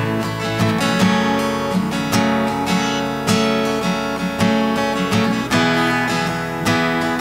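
Acoustic guitar strummed in a steady rhythm, an instrumental passage of a worship song with no singing.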